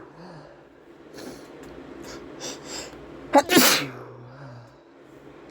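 A man sneezing hard once, about three and a half seconds in, a sneezing fit set off by chhinkni sneezing powder. Short breaths come before the sneeze, and a brief low voiced sound follows it.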